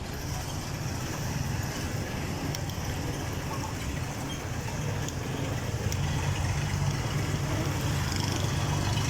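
A vehicle engine running steadily, a constant low hum.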